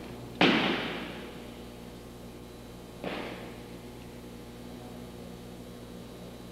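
Aikido breakfalls: the thrown partner's body hitting the mat, a sharp loud impact that trails off in the hall's echo, then a second, softer impact about two and a half seconds later.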